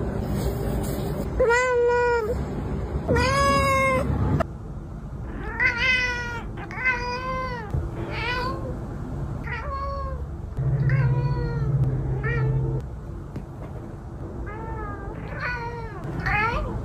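Domestic cats meowing: two long, loud meows, then a tabby cat's run of over a dozen shorter meows, roughly one a second with a short pause, a persistent wake-up meowing like an alarm.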